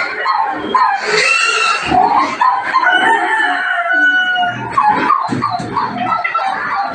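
Several pigs squealing and grunting at feeding time: a continuous chorus of overlapping high squeals from hungry pigs waiting for feed.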